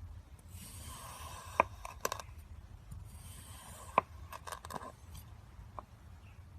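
Kinetic sand being crushed and crumbled: two spells of soft, grainy crunching, each with a sharp click, plus a few fainter clicks.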